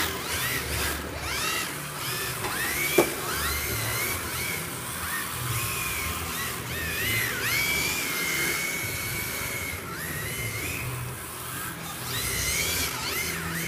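Electric drive motors of MST FXX-D rear-wheel-drive RC drift cars whining, the pitch rising and falling again and again as the throttle is worked, over a steady hiss from the tyres. A single sharp knock sounds about three seconds in.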